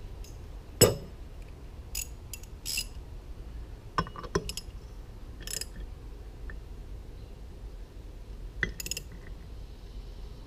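Irregular metal clinks and knocks of a socket and ratchet wrench being handled and fitted onto a mower-deck spindle's pulley bolt, with one sharp knock about a second in the loudest.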